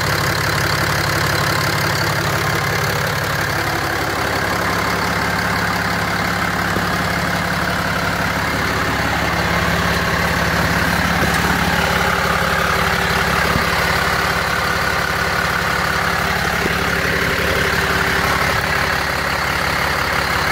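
6.7-litre Cummins inline-six turbo-diesel idling steadily, freshly restarted after a fuel filter change.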